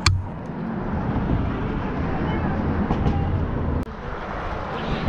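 Steady low rumble of passing road traffic, cut off abruptly about four seconds in, with a sharp click at the start.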